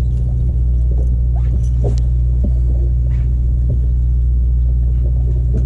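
Sport-fishing boat's engine running with a steady low rumble, with a few faint clicks and knocks over it.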